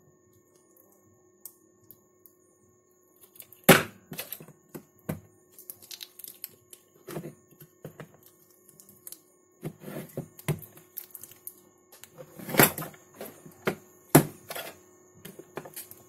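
Screwdriver blade prying a heat-softened washing machine control board out of its plastic housing: irregular sharp clicks and cracks, starting a few seconds in, with the loudest snaps about four seconds in and again near the end.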